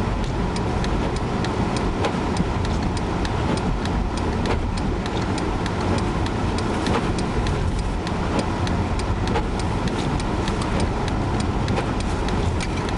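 Steady car road and engine noise heard inside the cabin while driving through heavy snow, with frequent light ticks.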